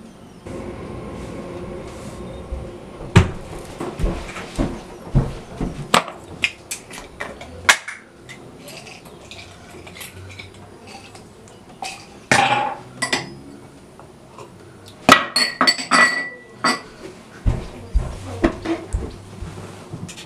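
Irregular knocks and clinks of small hard objects being handled and set down. A cluster of sharp ringing clinks, like glass or china, comes about fifteen seconds in.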